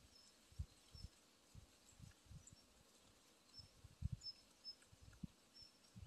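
Near silence outdoors: a few soft low thumps, and faint short high chirps scattered through.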